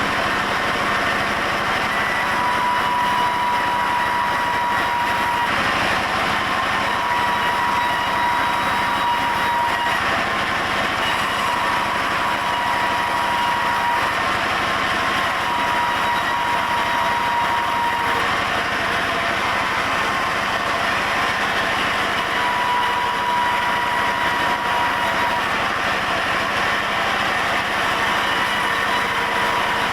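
Sawmill saw machine running steadily while sawing dense mahogany, with a high whine that comes and goes every few seconds.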